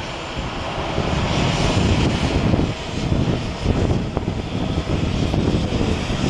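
Boeing 737-800's twin CFM56-7B turbofan engines at takeoff thrust as the jet lifts off and climbs away: a steady, loud jet noise with a low rumble under a hiss.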